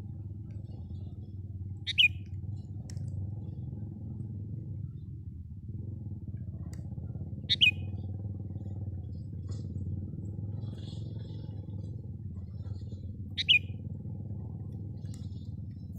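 A bird's short, sharp call, given three times at even intervals of about six seconds, over a steady low rumble. Fainter high chirps from other birds come in during the second half.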